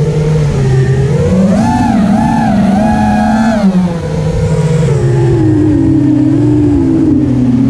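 FPV racing quadcopter's four brushless motors (2207 1800kv on 6S) and six-inch props whining, the pitch climbing and wobbling with the throttle a couple of seconds in, then sinking steadily as the throttle comes off.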